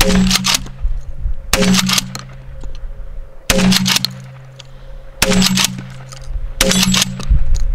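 12-gauge Remington TAC-14 DM pump shotgun fired five times in steady succession, a shot every one and a half to two seconds, with the action worked between shots. Each blast has a ringing tail about a second long.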